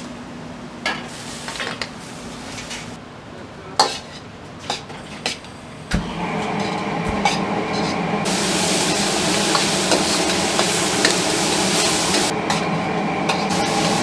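Scattered clinks and knocks of utensils, then about six seconds in a loud, steady sizzle of food frying sets in, with a steady hum underneath.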